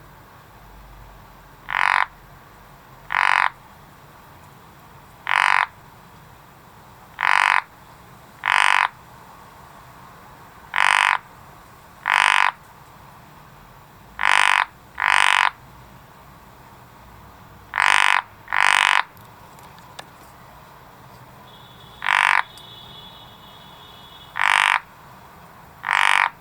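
A frog croaking: about fourteen short, loud croaks, each under half a second, spaced a second or more apart and often in pairs.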